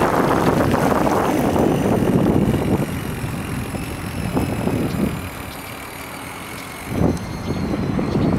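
Wind rushing over the microphone of a camera on a moving bicycle, loud for the first few seconds and then easing off, with a short bump about seven seconds in.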